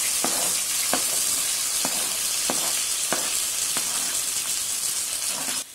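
Chopped onion, green chillies and curry leaves sizzling in hot oil in an iron kadai, a steady hiss, while a metal slotted spoon scrapes the onion off a cutting board into the pan in about six short strokes. The sizzle cuts off suddenly near the end.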